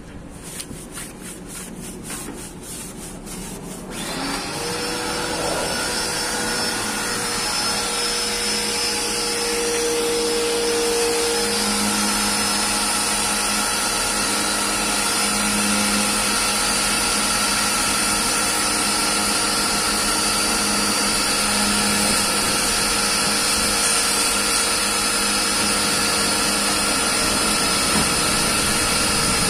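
About five rapid clicks a second for the first few seconds, then a small electric machine starts about four seconds in and runs steadily with a loud hiss over a steady hum.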